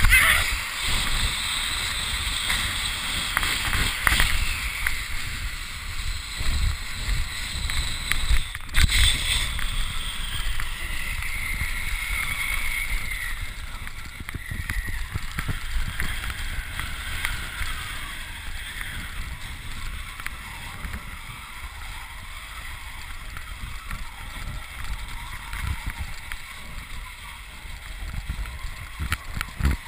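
Wind buffeting the microphone of a camera riding on a snow tube, with the hiss of the tube sliding over snow, gradually getting quieter. A single sharp knock of a bump about nine seconds in.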